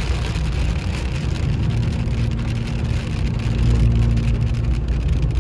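Car driving on a wet road in the rain, heard from inside the cabin: a steady low hum of engine and road noise with the hiss of tyres on wet pavement and rain ticking on the car.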